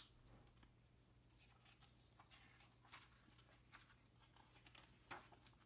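Near silence: quiet room tone with a faint low hum, and a few soft rustles of a large paperback book being opened and its pages handled.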